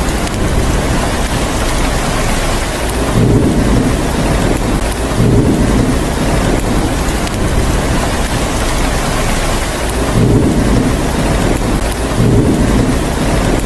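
Steady rain with low rumbles of thunder that swell up four times, each about a second long.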